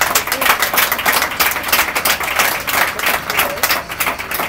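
An audience applauding: many hands clapping in a dense, loud patter.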